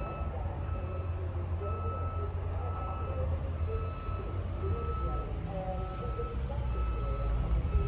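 Outdoor ambience: a steady low rumble under a thin, high, chirping tone that repeats in short bursts about once a second, with fainter wavering chirps in the background.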